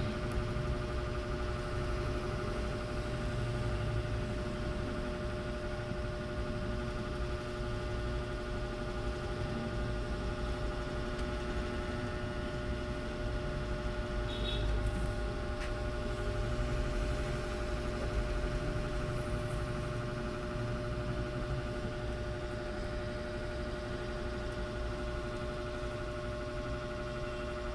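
A steady hum with several fixed tones over a low rumble, as from a running appliance or small motor, with a faint click about fifteen seconds in.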